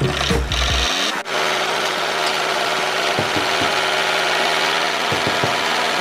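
Small electric motors of a homemade miniature tractor and its towed machine running with a steady, noisy whir that takes over from music about a second in.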